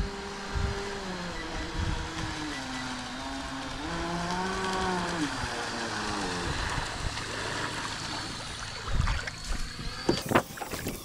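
Brushless electric motor of a Proboat Supersonicwake 48 RC speedboat whining at speed on a baseline run, its pitch rising and falling as the boat runs and turns, over a hiss of water. A few sharp knocks come near the end.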